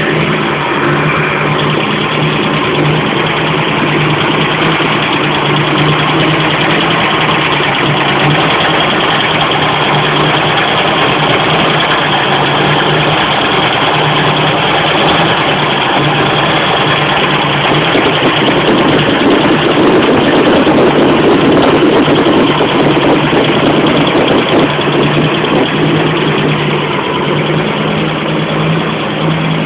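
Modified Ford 302 small-block V8 in a Ford Maverick, rumbling at idle with a steady low beat. It gets a little louder for a few seconds about two-thirds of the way through, then settles back.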